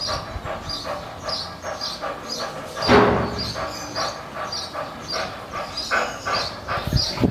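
Dog panting rapidly, about three to four breaths a second, with one louder breath about three seconds in.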